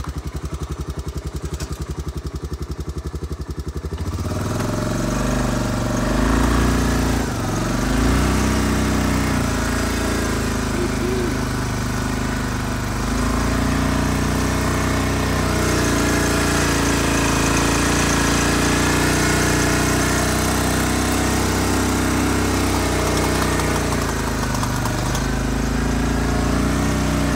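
Honda Foreman ATV's single-cylinder four-stroke engine at low revs for about four seconds, then revving up and pulling steadily under load as it tows a heavy trailer of firewood up a steep, muddy slope.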